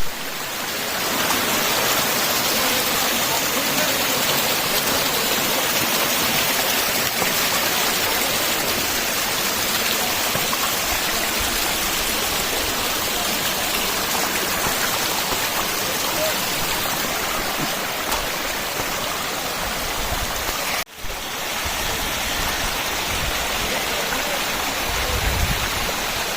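Steady rush of running water, with a brief break about three-quarters of the way through.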